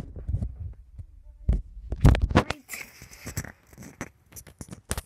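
Handling noise from a tablet being picked up and moved by hand: dull thumps and rumble against the microphone, the loudest about two seconds in, then a run of quick scratches and clicks as fingers rub over it.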